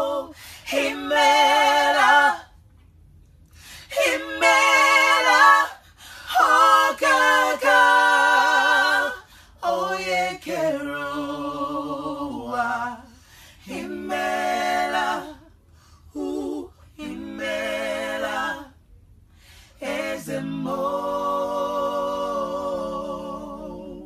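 A cappella vocal trio, two women and a man, singing a gospel melody together in harmony. It comes in phrases broken by short pauses, with vibrato on the held notes, and fades away at the end.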